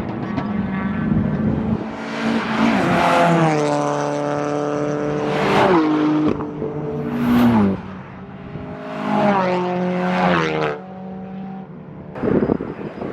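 Holden Commodore VE SS's 6.0-litre V8 engine under hard acceleration on a race track. Its revs climb for a few seconds and then fall sharply, twice, as it is driven through the rev range.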